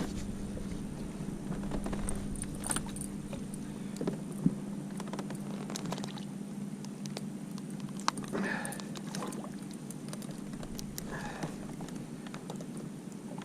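Scattered light clicks and small rattles of fishing gear being handled in a kayak, over a steady low hum.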